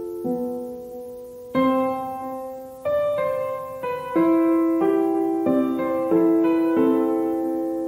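Background piano music: slow, single sustained notes and chords, each struck and left to fade.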